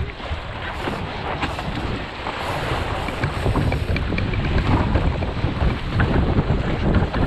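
Wind buffeting the microphone over the rush and splash of water along the hull of a National 18 sailing dinghy moving fast under sail, with spray slapping at the bow.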